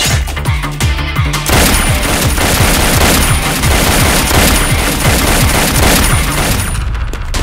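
Rapid, sustained machine-gun fire from a film's sound effects, starting about one and a half seconds in and cutting off shortly before the end, over a dramatic background score with a pounding low beat.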